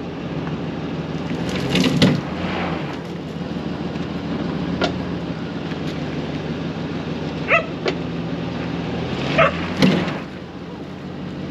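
Pickup truck engine running steadily, swelling briefly about two seconds in and again near the end as it tries to pull bushes out by the roots. A few short, sharp calls sound over it partway through.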